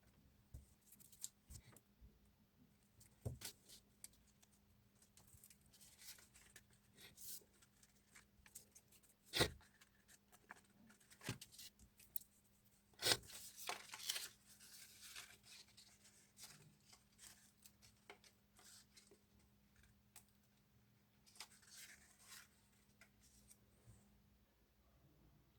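Paper being handled and cut by hand: faint, scattered rustles, snips and small taps, with two sharper clicks about nine and thirteen seconds in and a short rustle just after the second.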